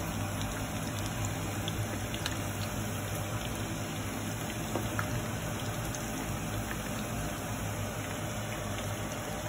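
Chicken vadai deep-frying in hot oil: a steady sizzle and bubbling, with a few faint clicks of the slotted spoon turning and lifting the patties.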